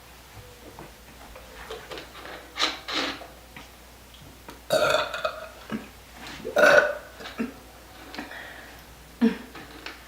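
A girl burping repeatedly after drinking carbonated vanilla Coca-Cola: several separate burps, the loudest two about five and seven seconds in, with smaller ones before and after.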